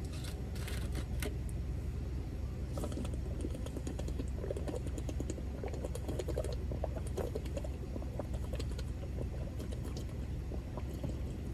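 A plastic bottle of pre-workout drink being gulped down, with small irregular clicks and crackles from the plastic and the drinking, over a steady low hum inside a car's cabin.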